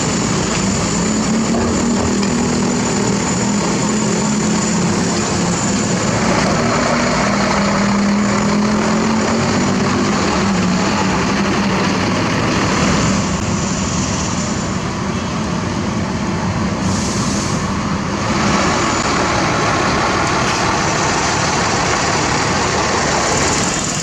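Heavy diesel engine running steadily under load, with a wavering hum for the first ten seconds or so.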